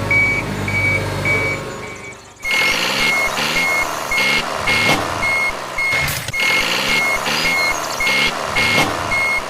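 Vehicle reversing alarm beeping steadily, about two beeps a second. About two and a half seconds in, heavy engine noise from a truck or construction machine joins it and runs under the beeps.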